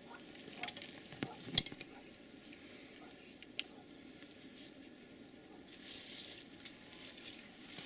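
Small clicks and rustling close to the microphone, with one sharp click about a second and a half in and a short stretch of rustling about six seconds in.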